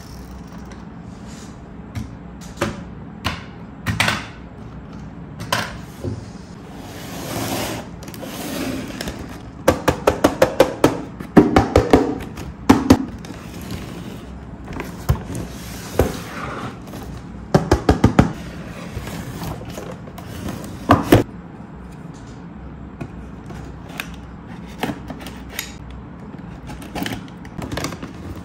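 Handling noise from a cardboard toy box being turned over and opened: scattered taps and knocks, with two dense runs of rapid crackling clicks, one about ten seconds in and one about eighteen seconds in.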